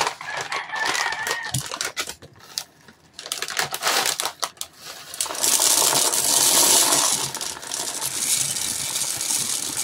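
Plastic airsoft BBs being poured from a resealable plastic bag into a BB storage bag. A few short trickles and clicks come first, then a steady rattling stream of pellets from about five seconds in.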